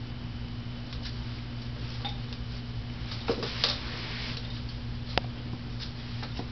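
Toy schnauzer puppy moving about: scattered light clicks and a brief scuffle about three seconds in, with one sharp click a little later, over a steady low hum.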